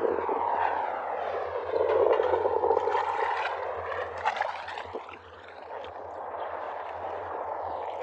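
Muddy water sloshing and swirling around a person wading chest-deep, louder for a couple of seconds about two seconds in.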